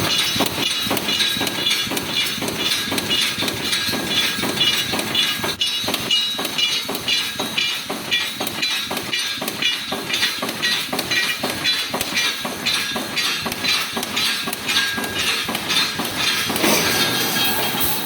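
Automatic resistance wire-mesh welding line running, welding cross wires in a steady rhythm of about two clanking strokes a second over a continuous hiss.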